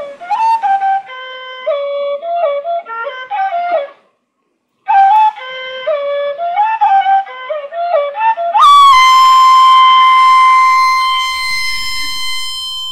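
Solo flute-like wind instrument playing a melody with sliding notes in two phrases, separated by a short pause. About two-thirds of the way through it moves onto one long, held high note.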